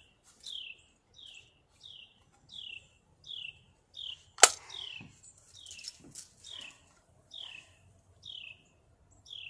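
A Daisy Powerline 35 multi-pump air rifle fires once with a single sharp crack about four and a half seconds in, followed by a few fainter clicks. Throughout, a bird calls a steady series of down-slurred whistled notes, a little under two a second.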